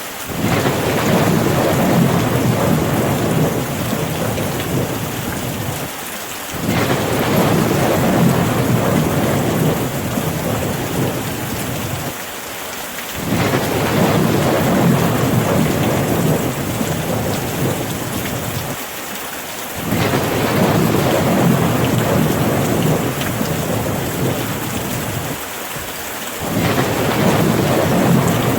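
Steady rain with low thunder rumbles. The rumble swells and fades five times, at even intervals of about six and a half seconds, each time after a brief dip.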